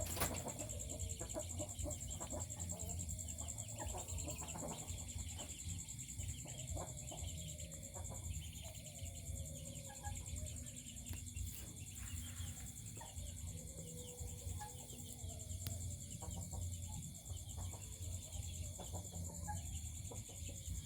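Chickens giving soft, low clucks now and then over a faint steady hum.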